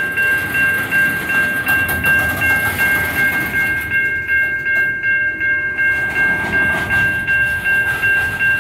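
Safetran Type 3 electronic crossing bell ringing in a steady repeating ding, over the low rumble of loaded coal hopper cars rolling slowly through the crossing.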